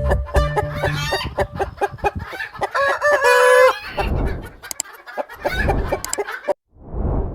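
Chickens clucking, with a rooster crowing once about three seconds in.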